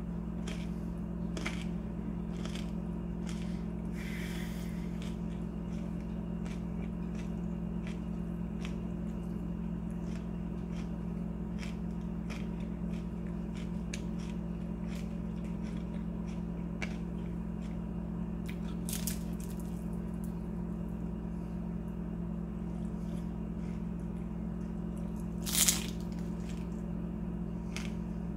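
Biting and chewing on a crisp fried bean taquito, with scattered small crunches over a steady low hum. A single louder sharp crunch comes near the end.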